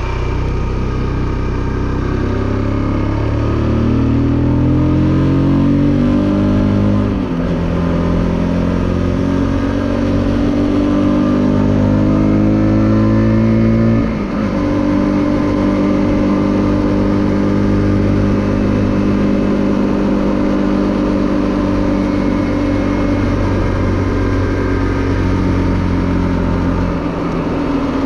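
Motorcycle with a tuned ZY125SR 125cc engine pulling away and accelerating. The revs climb, drop sharply at an upshift about seven seconds in, climb again and drop at another upshift around fourteen seconds in, then hold steady at a cruise.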